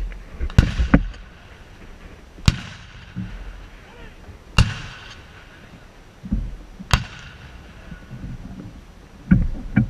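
Civil War reenactment field cannons firing one after another down a battery line: a series of sharp blasts about every two seconds, each trailing off briefly, with a tighter cluster of reports near the end.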